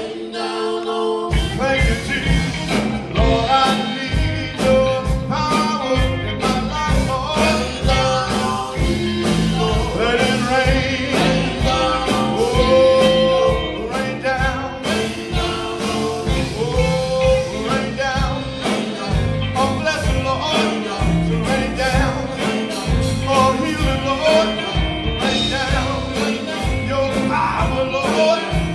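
Live gospel band: electric guitar, bass and drum kit playing a steady beat under group vocals, with the drums and bass dropping out for a moment right at the start.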